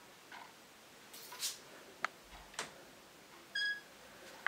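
Quiet room with faint clicks and rustles from a handheld camera being handled, a brief hiss about a second in, and a short high beep near the end.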